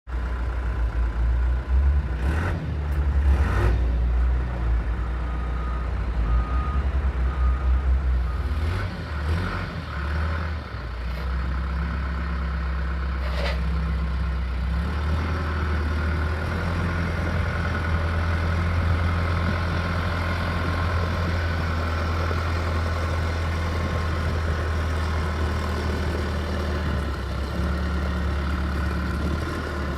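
Bell 315SJ turbo 4x4 tractor-loader-backhoe's diesel engine running steadily. A reversing alarm beeps four times about six seconds in, and a few sharp knocks come in the first half.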